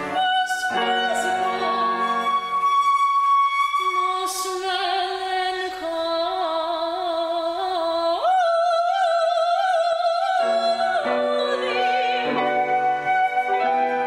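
A soprano singing a Baroque aria in operatic style, with flute and piano accompaniment; in the middle the voice holds long notes with vibrato, and the lower accompaniment comes back in near the end.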